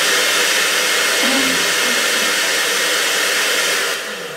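Hand-held hair dryer running with a loud, steady rush of air, switched off near the end, its noise fading away as the fan winds down.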